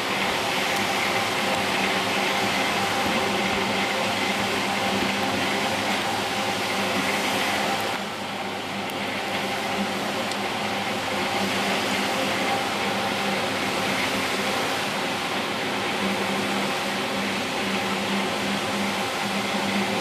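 Double-brush manual carpet washing machine running steadily, its motor and rotating brushes making a continuous hum and hiss. It goes briefly quieter about eight seconds in.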